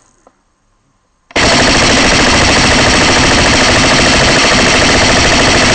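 Airsoft rifle firing one long unbroken full-auto burst, a mag dump, starting suddenly about a second in. It is loud and dense, with the shots too fast to pick apart.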